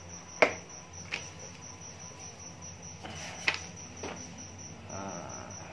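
A cricket chirping steadily in high, rapid, evenly spaced pulses, with a few sharp taps and the rustle of paper being handled; the loudest tap comes about half a second in.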